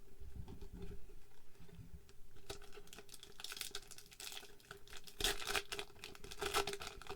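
Pokémon booster pack wrapper crinkling and being torn open: a run of crackly rustling and tearing starting about two and a half seconds in, loudest near the end.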